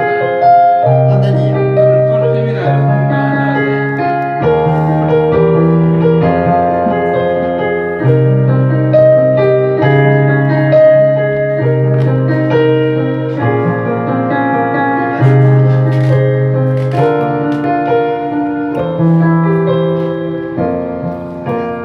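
Keyboard music: sustained piano-like chords over a bass note that changes every one and a half to two seconds.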